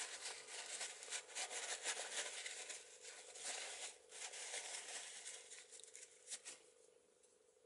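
A crumpled paper towel rustling and rubbing over a metal lock case in short scrubbing strokes, wiping away oil, stopping about six and a half seconds in.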